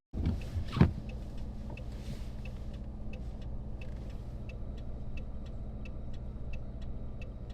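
Car hazard-light flasher ticking evenly, about three clicks a second, over the steady low hum of the idling engine. A single thump comes about a second in, before the ticking begins.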